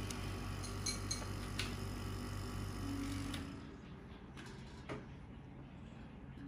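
A few light clicks and taps over a steady low hum. The hum drops away about three and a half seconds in, and one more click follows about a second later.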